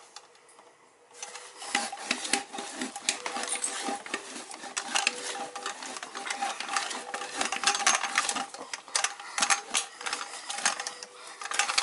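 Tubing cutter being turned around a brass drain tailpiece: rapid scraping and clicking as the wheel scores the metal, with the tube ringing steadily underneath. It starts about a second in.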